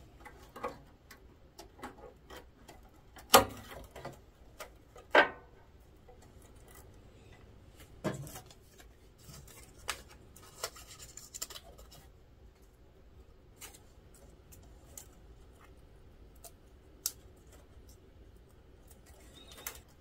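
Hands working among the ribbon-cable connectors and tape labels on a printer's motherboard: scattered small clicks, rubbing and scratching of plastic and tape, with two louder knocks about three and five seconds in.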